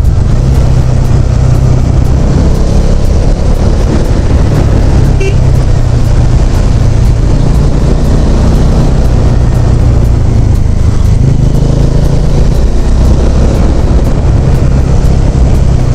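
Bajaj Dominar 400 motorcycle's single-cylinder engine running steadily while the bike is ridden along the road.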